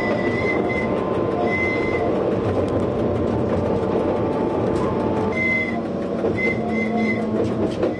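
Narrow-gauge Duro Dakovic diesel railcar running along the track, a steady rumble of engine and wheels, with short high-pitched squeals coming and going several times.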